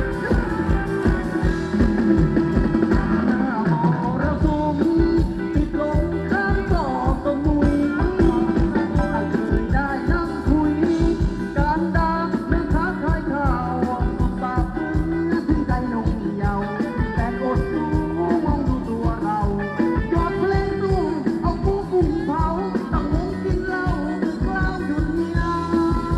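Thai ramwong dance music from a live band, with singing over a fast, steady drum beat.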